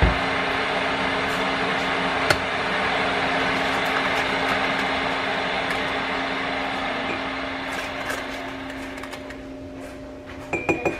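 Glass electric kettle (Mueller) at the boil, a steady rushing noise with a low hum. A click about two seconds in as it switches itself off, after which the boiling noise slowly dies away. Near the end, a few light taps of a plastic scoop on a mug.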